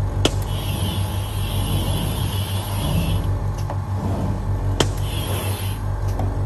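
CNC glass cutting table running with a steady low machine hum, its carbide cutting wheel scoring the glass sheet with a high hiss in two stretches. Two sharp clicks, one just after the start and one a little before the end.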